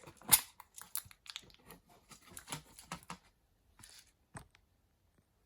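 A box of watchmaker's crowns being opened and handled: a sharp click just after the start, then a quick run of small clicks and rustles for about three seconds. Two last clicks come near the end.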